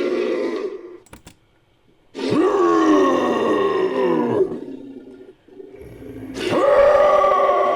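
Designed creature roar sound effect made from layered big-cat and bear roars with a human voice. One roar dies away about a second in; after a short pause a second roar falls in pitch and trails off more quietly, and a third begins near the end.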